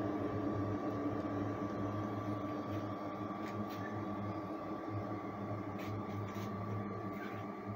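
Kangeki-kun portable spot cooler running: a steady mechanical hum from its compressor and fan, with a thin steady whine above it and a few faint ticks.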